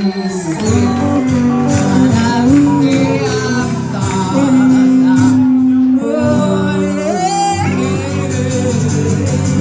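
Live band music with singing over guitar, the sung line holding notes and gliding between them.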